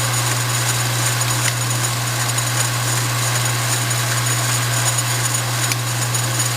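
Emco Maximat Super 11 metal lathe running under power, its motor and geared drive making a steady, even hum, with two faint ticks.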